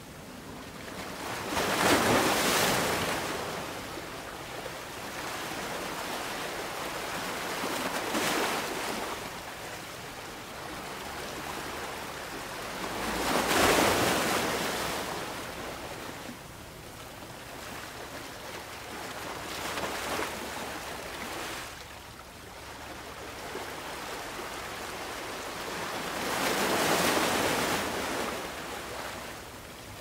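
Ocean waves breaking on a beach, the surf swelling and washing back in five surges about six seconds apart, over a steady hiss of water.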